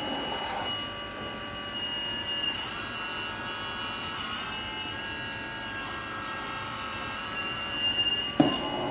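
Homemade 1/12-scale RC Komatsu PC360LC excavator running, its motors giving a steady high-pitched whine over a mechanical hum, with one sharp knock near the end.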